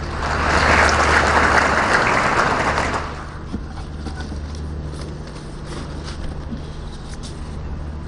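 Audience applauding for about three seconds, then dying away to a few scattered claps, over a steady low hum.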